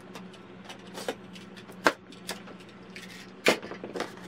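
A small cardboard mailer box being handled and opened, with a few sharp clicks and taps. The two loudest come just under two and about three and a half seconds in, over a faint steady low hum.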